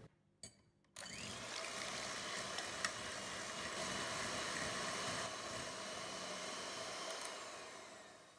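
Electric hand mixer running, its twin beaters whisking egg whites to a froth in a glass bowl: a steady whir that starts about a second in and fades away near the end.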